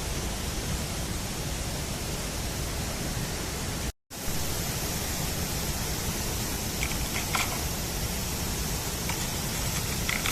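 Steady rushing outdoor noise, even across the range, cut to silence for a moment about four seconds in before it resumes, with a few faint short chirps near the end.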